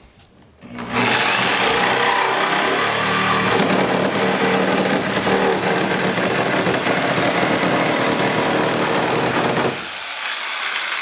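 Reciprocating saw (Sawzall) running and cutting into the car's hood to enlarge the scoop opening. It starts about a second in, runs steadily, and stops abruptly near the end.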